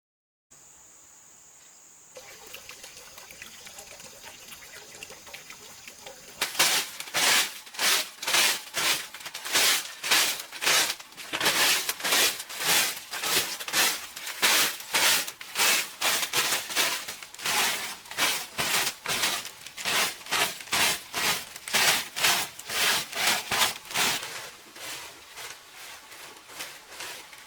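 Rhythmic back-and-forth scraping or rubbing strokes, about two a second, starting several seconds in and easing off near the end.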